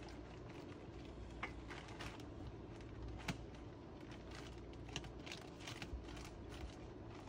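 Scattered light clicks, knocks and rustling as sawmill parts and packing are handled inside a plywood shipping crate, the sharpest knock a little past three seconds in.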